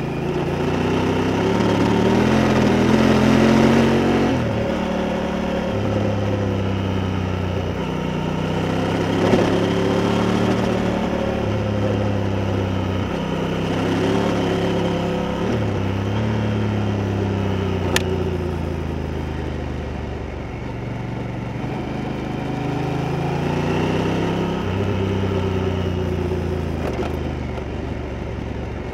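Honda Africa Twin's parallel-twin engine under way, its pitch climbing and falling again and again as the rider accelerates, changes gear and eases off. A single sharp click about eighteen seconds in.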